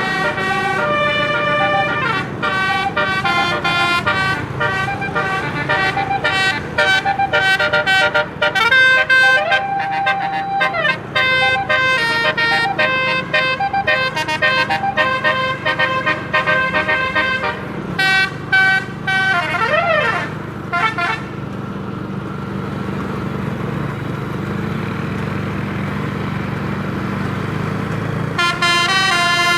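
Bus multi-tone telolet air horn, a 12-note set, playing a quick tune of short notes for about twenty seconds, with a wailing up-and-down pitch sweep near the end of that run. The horn then stops and the bus engine runs steadily for several seconds before the horn starts again just before the end.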